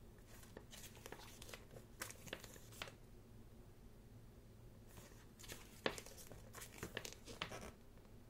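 Pages of a thick photobook turned by hand: quiet paper rustling and crinkling in two short runs, one in the first few seconds and one in the second half.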